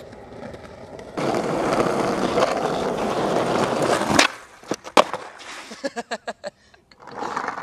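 Skateboard wheels rolling on asphalt, a steady rumble for about three seconds that ends in a sharp smack as the skater bails. The board then clatters on the pavement in several separate knocks.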